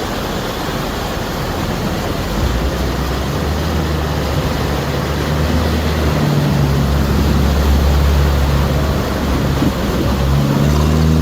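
A vehicle engine running in a flash flood over the steady rush of floodwater. The engine hum comes in about two and a half seconds in and is loudest from about six to nine seconds.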